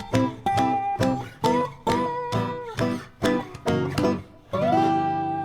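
Background music: acoustic guitar strummed in a steady rhythm under a melody, ending on a long ringing chord that fades away.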